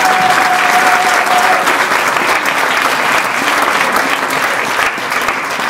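Audience applauding, many hands clapping steadily in welcome.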